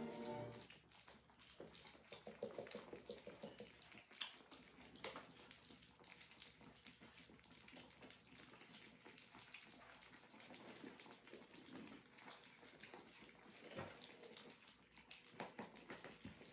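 Three-week-old French bulldog puppies lapping and smacking at soft food on a feeding mat: faint, irregular wet clicks.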